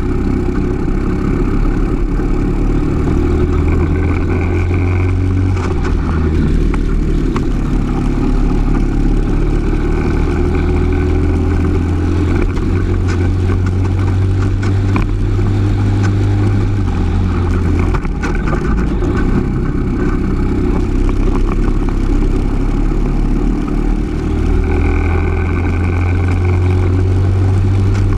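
Briggs & Stratton LO206 single-cylinder four-stroke kart engine running at racing speed, its revs rising along the straights and dropping back several times into corners.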